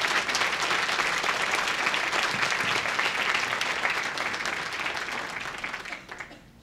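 Audience applauding: a steady patter of many hands clapping that fades and stops about six seconds in.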